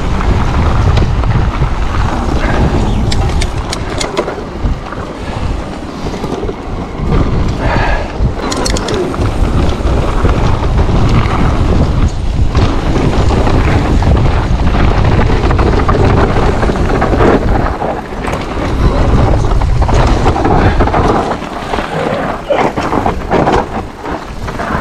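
Wind buffeting the action camera's microphone and tyres rumbling over a dirt trail during a mountain-bike descent, with scattered rattles and knocks from the bike.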